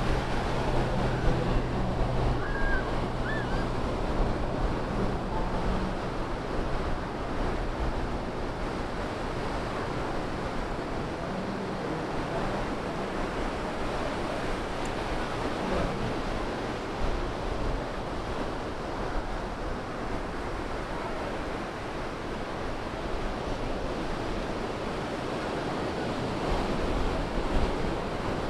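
Pacific surf breaking and washing up the beach under a pier: a steady rushing noise from the waves, with some wind on the microphone. A helicopter's low drone fades out over the first several seconds.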